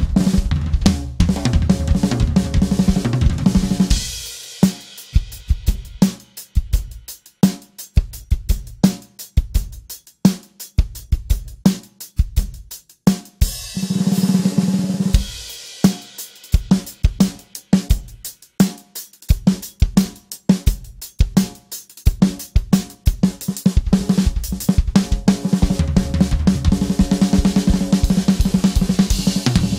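Drum kit played solo, featuring a c. 1960 George Way snare drum with a dry sound and few overtones. Dense snare rolls at the start, again in the middle and through the last several seconds alternate with spaced single strokes and accents, with bass drum and cymbals.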